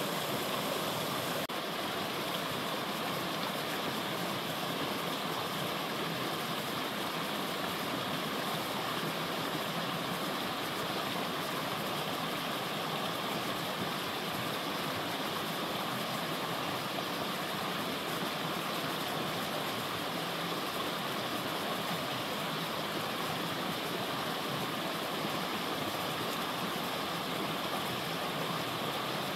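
Mountain creek flowing, a steady, even rush of water that holds at one level throughout; the creek is running low.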